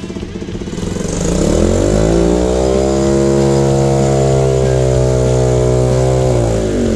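Dirt bike engine revving up over about two seconds, held at a steady high speed, then easing off near the end.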